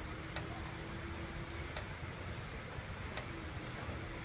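Night ambience as a rainstorm eases off: a steady soft hiss with faint drips about every second and a half. A faint low hum comes in during the first half and again near the end.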